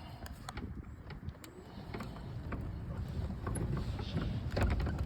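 Golf cart driving over a bumpy field: a low rumble with scattered clicks and rattles from the cart bouncing.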